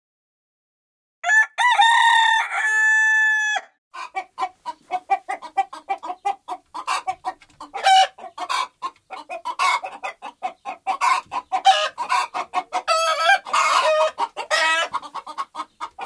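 A rooster crows once, about a second in. Then a flock of hens clucks in rapid, overlapping short calls.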